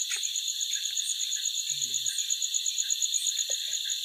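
Night chorus of crickets: a high chirping in a rapid, even pulse, over a steady hiss of other insects.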